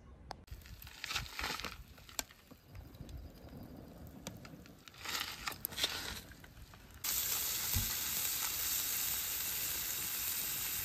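Steaks sizzling on the grate of a wood-fired campfire grill, a steady hiss that starts abruptly about seven seconds in. Before it, quieter scattered crackles and clicks.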